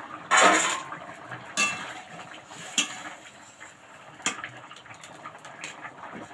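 Long metal spatula stirring potato curry in a metal wok: a loud scraping clatter about half a second in, then four sharp clinks of the spatula striking the wok's rim and sides, spaced a second or more apart.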